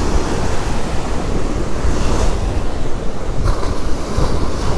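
Big waves breaking and surf washing up the sand at the water's edge, swelling louder about two seconds in and again later, with wind buffeting the microphone. The angler takes the waves for a passing boat's wake.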